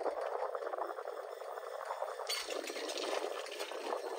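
Breeze blowing against a chairlift tower: a steady rushing with a faint crackle, turning brighter and hissier about two seconds in.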